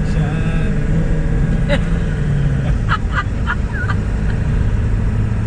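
Road and engine noise inside a moving pickup truck's cab: a steady low drone whose pitch drops a little about two and a half seconds in.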